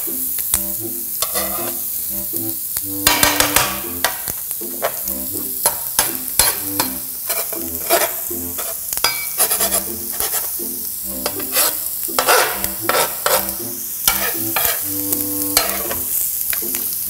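Metal spatula scraping and chopping fried eggs on a hot electric griddle to scramble them: many quick scrapes and taps over a steady sizzle of frying eggs and sausages.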